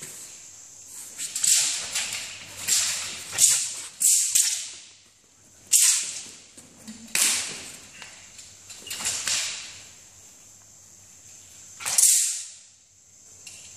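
Chinese dao broadsword cutting the air in a series of fast, sharp whooshes at uneven intervals, about nine in all, with a pause of about two seconds before a last loud one.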